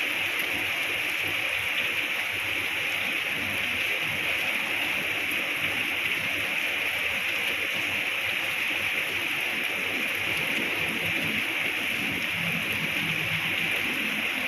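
Steady heavy rain falling, an even hiss that neither rises nor falls.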